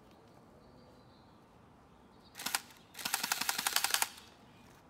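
Heckler & Koch P30 electric airsoft pistol firing on full auto: a short burst about two and a half seconds in, then a rapid run of shots, roughly a dozen a second, lasting just over a second.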